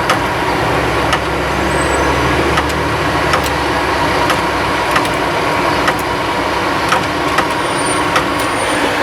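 Payphone keypad buttons pressed one at a time to dial a toll-free number: about eleven short clicks, each under a second apart, over steady street traffic.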